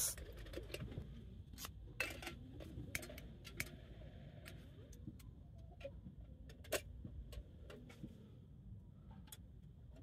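Faint scattered clicks and small knocks at irregular intervals, the clearest about two, three and a half and nearly seven seconds in, over a low steady rumble.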